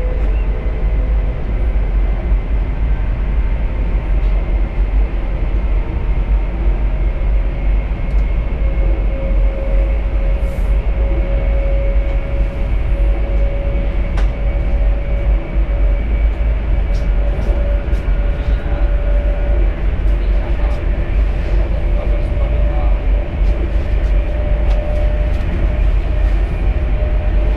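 Cabin noise of a CRH high-speed train running at speed: a steady heavy low rumble with a faint whine that rises slightly in pitch.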